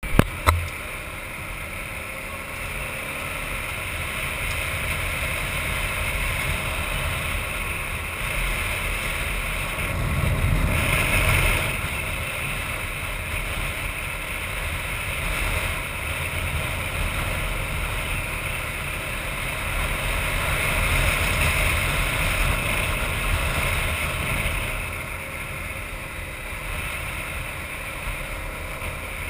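BMW F650GS Dakar motorcycle riding a gravel road: wind rushing over the microphone with the engine's low rumble underneath, swelling louder twice. Two sharp clicks right at the start.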